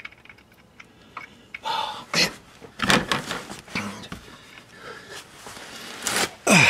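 A man's heavy breathing: a run of short, forceful breaths and exhalations, several over about five seconds, starting a second and a half in, as he strains at awkward, fiddly work.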